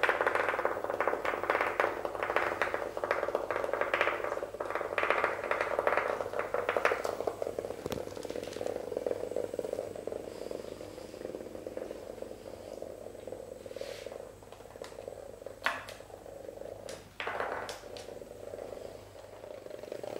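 Hexbug Nano vibrating toy bug buzzing and rattling across a hardwood floor, its tiny vibration motor giving a steady buzz. The rattle is densest in the first several seconds, and a few sharp clicks come later on.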